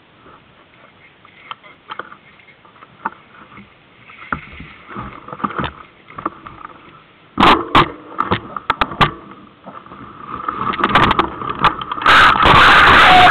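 Specialized S-Works hardtail mountain bike rolling down a rocky track: scattered clicks at first, then tyres crunching over loose stones with a growing clatter of sharp knocks from the frame and drivetrain, the loudest in a quick run of hits about halfway through. Near the end a loud steady rushing noise takes over as the bike picks up speed.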